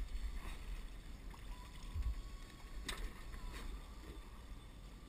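Wind rumbling on the microphone over water lapping against a small boat, with two sharp clicks about three seconds in.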